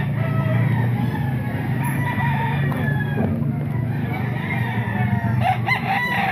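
Several gamecocks crowing and clucking at once, their calls overlapping, over a steady low hum.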